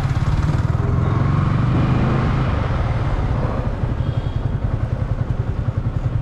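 Yamaha sport motorcycle's engine running at low speed as the bike rolls slowly, easing off about two thirds of the way through into an even, pulsing low-rev beat.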